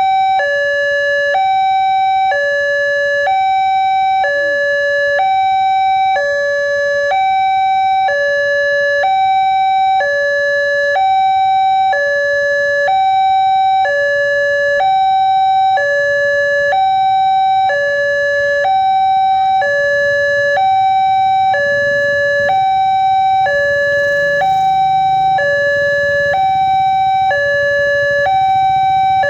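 Electronic two-tone warning siren of a railway level crossing, alternating evenly between a high and a low tone as the barriers close for an approaching train. A low rumble builds beneath it in the second half.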